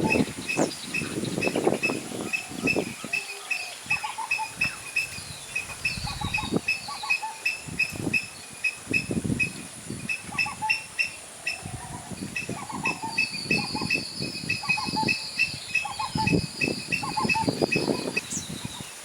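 Birds calling: one repeats a short high note a few times a second while others chatter and call, over bursts of rustling in the foliage.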